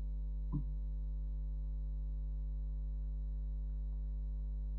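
Steady electrical mains hum with a stack of overtones, and one brief short sound about half a second in.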